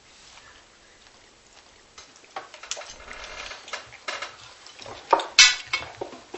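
Household handling noises: light clicks, knocks and short scrapes of objects being moved, starting about two seconds in, with one sharp, loud clatter about five seconds in.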